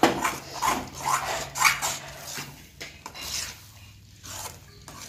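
Metal spoon stirring and scraping thick, sticky halwa around a metal pan: irregular rasping scrapes with soft wet slaps of the mass, louder in the first half and softer after. The halwa is cooked down to the stage where its oil separates.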